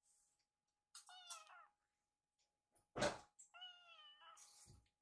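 Tabby kitten mewing twice, high calls that fall in pitch, about a second in and again near four seconds, the second longer: a kitten begging for food it expects. A short clatter about three seconds in is the loudest sound.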